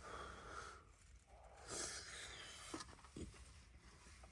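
Faint breathing in a small tent: two soft exhalations, with a couple of small clicks near the end.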